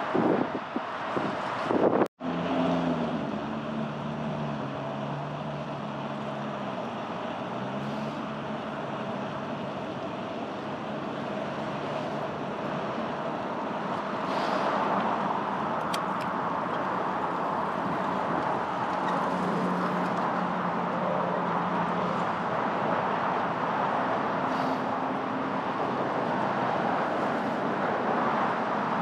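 City traffic and road noise heard from a moving bicycle, with wind on the microphone and the low hum of vehicle engines coming and going. The sound cuts out for an instant about two seconds in.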